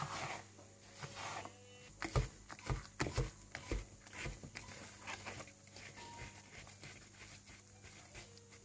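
Wire whisk beating thick chocolate sponge batter in a bowl, scraping and clinking against the bowl's sides, with a quick run of sharp knocks about two to four seconds in, then softer scraping.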